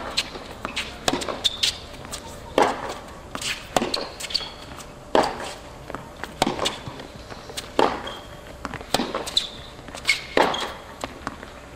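Tennis rally on a hard court: the ball is struck back and forth, with a sharp racket pop about every 1.3 seconds, the near player's shots loudest, and bounces and brief shoe squeaks between.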